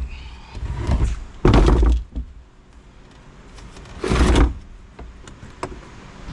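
Three heavy scraping knocks, then a few light clicks: a jumper lead being scratched against a car's electrical connection to bring up power.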